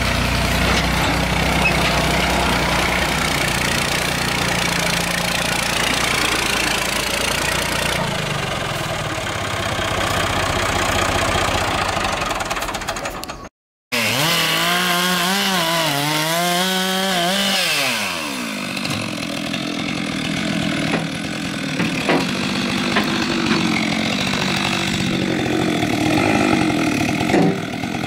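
Tractor engine running steadily as the tractor drives. About halfway through, after a brief break, a two-stroke chainsaw runs at high revs, its pitch wavering up and down as it cuts through a log, and it keeps running.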